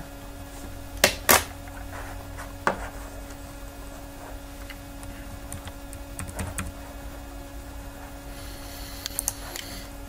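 Clicks from operating a computer: two sharp clicks about a second in, another near three seconds, a few fainter ones later and a quick cluster near the end, over a steady low hum.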